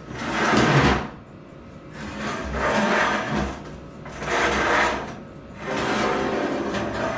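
Four rough scraping noises, each about a second long, with short gaps between them.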